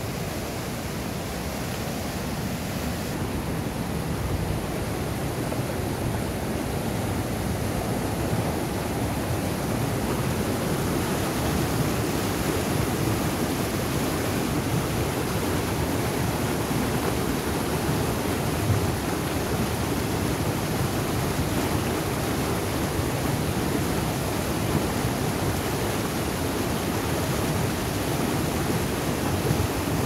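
Fast mountain river rushing over rapids: a steady, dense water noise.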